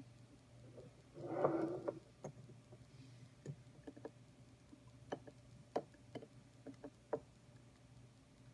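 TWSBI Eco piston-filler fountain pen being filled from a glass ink bottle: scattered small clicks and ticks as the piston knob is twisted and the pen touches the bottle neck, with a brief louder sound about a second in.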